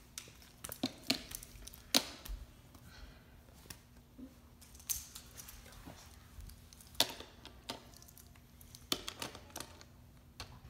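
Small plastic toy trains being handled and clicked onto a plastic toy track: irregular sharp clicks and knocks, the loudest about 2, 7 and 9 seconds in, over a faint steady hum.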